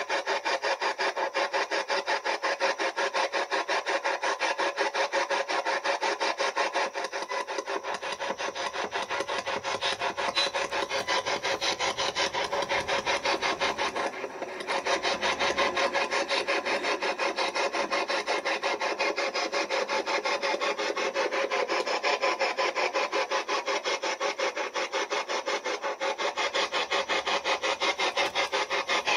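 Spirit box (a scanning radio) sweeping through stations: radio static chopped into a rapid, even rasping rattle, dipping briefly about halfway through.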